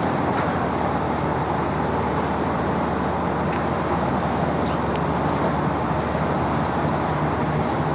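Boat engine running with a steady low drone under a constant rushing noise.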